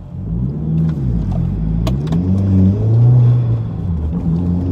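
Turbocharged Audi TT engine heard from inside the cabin, pulling away, its pitch rising and dropping a few times and then holding steadier.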